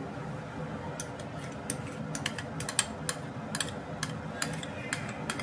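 A metal spoon scooping desi ghee out of a container into an aluminium kadai, clicking and scraping against the container and pan in quick, irregular taps that start about a second in, over a steady low hum.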